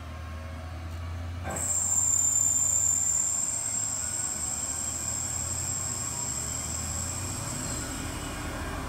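CNC lathe's cutoff tool parting through the spinning metal bar. A steady high-pitched whine sets in suddenly about a second and a half in and holds, over coolant spray hiss and a low machine hum.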